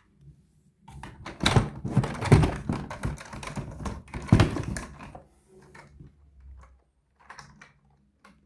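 Knocks and clattering of toy cars being handled and set down, busiest between about one and five seconds in, then a few lighter clicks near the end.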